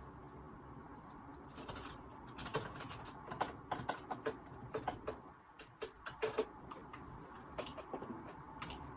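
Computer keyboard being typed on: irregular keystrokes in short runs, starting about two and a half seconds in, over the steady hiss of a phone microphone.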